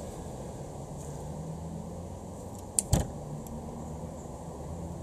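Torque wrench being pulled on an ARP head-stud nut, giving a sharp double click about three seconds in as it reaches its set torque of 80 ft-lb. A steady low hum runs underneath.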